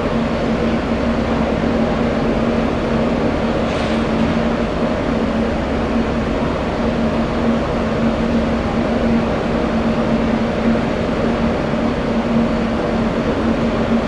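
Steady drone of jet aircraft engines with a constant two-tone hum, under a low uneven rumble of strong wind buffeting the microphone.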